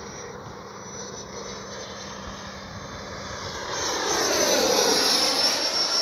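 Electric ducted fan of an E-flite F-16 Thunderbirds 80mm EDF jet whining in flight. It grows much louder about four seconds in as the jet passes by, and its whine falls slightly in pitch.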